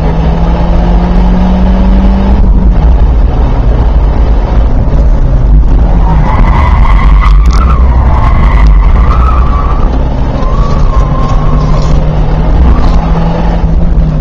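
Ford Focus I 1.6-litre 16-valve four-cylinder engine heard from inside the cabin, rising in pitch for the first two seconds and then dropping. From about six seconds in, the tyres squeal with a wavering whine through a corner for several seconds.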